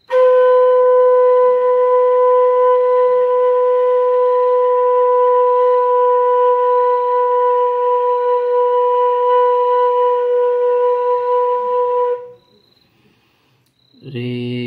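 Bansuri (bamboo flute) holding one steady note for about twelve seconds, long-note sargam practice, then stopping. A lower, steady drone with many overtones starts near the end.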